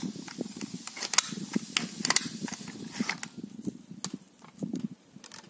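Handling noise from an A&K M4 airsoft replica: irregular clicks and knocks of hands moving over its plastic stock and grip.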